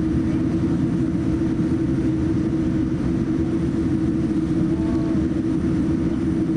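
Cabin noise inside a Boeing 787-9 airliner taxiing: a steady low rumble with a constant hum from the engines at taxi power and the aircraft's systems.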